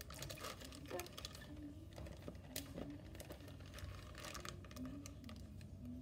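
Faint, irregular small clicks and crinkles of a plastic zip-lock bag being pressed flat by hand against the bottom of a plastic tub.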